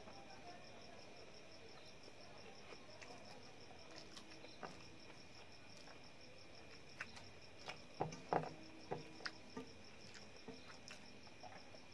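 A cricket trilling steadily, a fast, even pulsing, under short clicks and taps of fingers mixing rice on a steel plate, with a cluster of louder clicks about eight seconds in.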